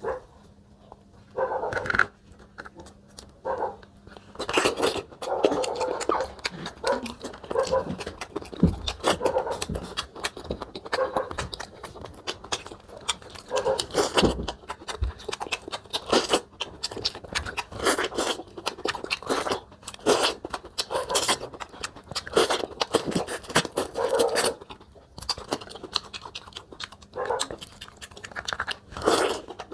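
Close-up eating sounds: wet chewing, smacking and biting into sauce-covered corn on the cob and crab, in an irregular run of short clicks and crunches.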